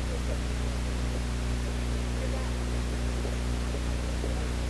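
Steady noise hiss with a constant low hum, and faint distant voices now and then.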